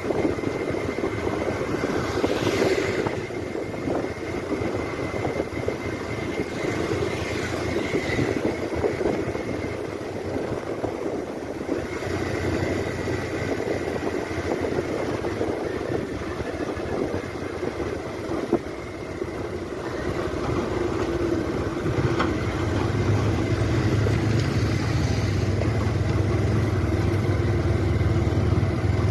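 Engine and road noise of a moving vehicle, heard from on board, with no speech. A low engine hum grows louder about three quarters of the way in.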